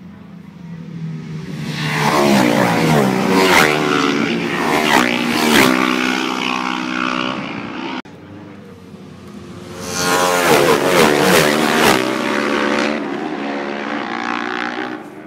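Supertwin road-racing motorcycles, twin-cylinder engines at full throttle, passing close by in a bunch, the engine notes falling in pitch as each bike goes by. A second group passes at speed about ten seconds in.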